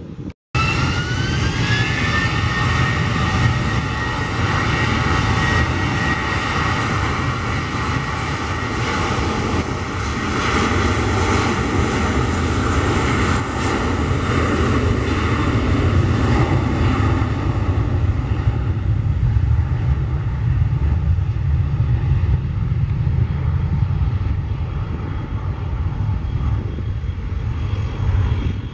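Twin jet engines of an American Airlines Airbus A320-family airliner rolling on the runway: a loud, steady roar with a whine that rises in pitch as the engines spool up in the first couple of seconds. The roar slowly eases off over the last ten seconds.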